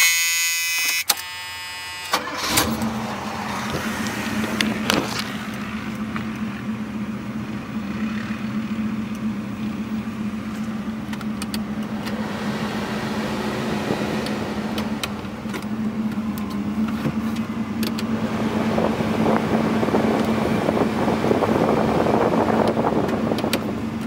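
A 1979 Pontiac Trans Am's dash warning buzzer sounds for about two seconds. The V8 engine then starts and settles into a steady idle, heard from inside the cabin. A rushing noise grows louder for a few seconds near the end.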